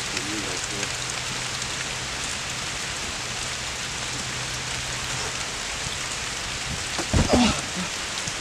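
Steady rain falling, with a couple of short thumps about seven seconds in.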